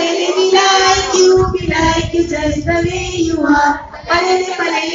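A group of voices, mostly female, singing a game chant together in unison, with long held notes. Low thumps run underneath from about one to four seconds in.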